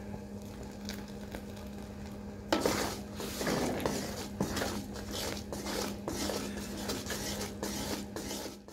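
Wooden spoon stirring thickening sugar syrup in an aluminium pot. From about two and a half seconds in it scrapes and knocks against the pot in quick, irregular strokes, over a steady low hum.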